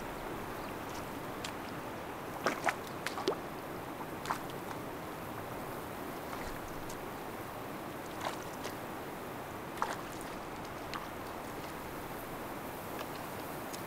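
Steady rush of running water, with scattered small sharp clicks and ticks, most of them bunched together about three seconds in.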